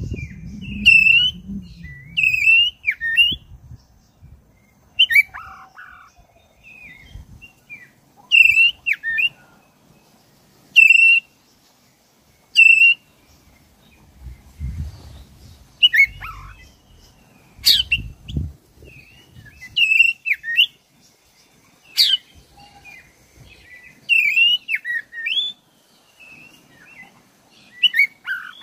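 Black-breasted oriental magpie-robin (kacer) singing: short, loud whistled phrases of quick sweeping notes, repeated every second or two with brief pauses between.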